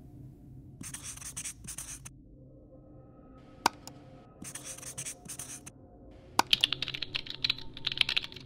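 Animation sound effects of a marker scribbling in two short runs, about a second in and again around the middle, with a single sharp mouse click between them. Near the end comes a quick run of keyboard typing clicks.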